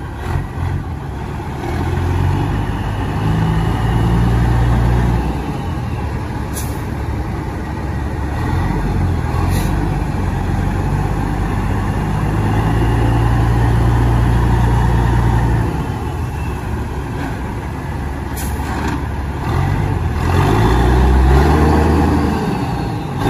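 Caterpillar diesel engine of a 2003 Peterbilt 357 day cab running, its revs rising and easing off several times. A few brief sharp sounds cut in over it.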